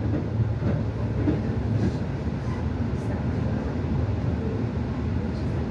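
Passenger train running, heard from inside the carriage: a steady low rumble with a few faint ticks from the rails.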